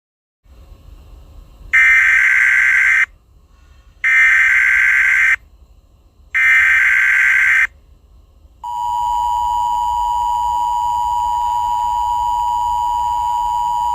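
Emergency Alert System tones: three short data bursts of the SAME header, each about a second long with a gap between them, then the steady two-tone EAS attention signal, which starts a little past halfway through.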